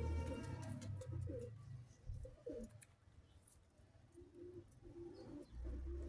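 Domestic pigeons cooing, repeated low warbling coos, with a low rumble heard at the start and again near the end.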